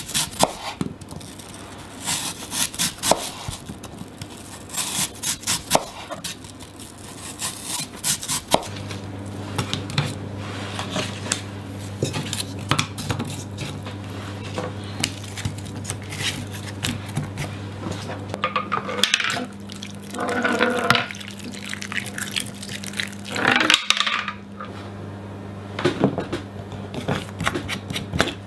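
Knife cutting through apple onto a wooden cutting board in short taps, then apple slices being laid into a metal frying pan with light clinks and scrapes. A low steady hum comes in about a third of the way through.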